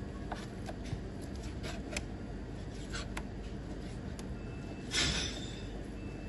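Knife cutting raw boneless lamb into chunks on a cutting board: scattered light taps and clicks of the blade on the board, with one louder scrape or clatter about five seconds in, over a steady low hum.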